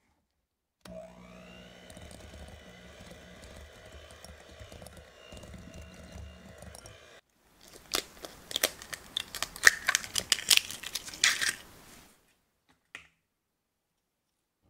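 Electric hand mixer beating cream cheese in a glass bowl, starting about a second in with a brief rising whine as it spins up, then whirring steadily until it stops. A run of sharp clicks and crackles follows: an egg being cracked into the bowl.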